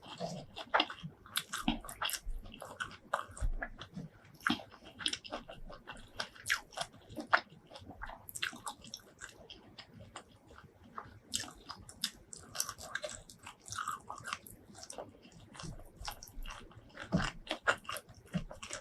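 Close-miked eating of spicy shrimp curry with rice: bites and chewing with irregular crisp crunches and wet mouth sounds, several a second.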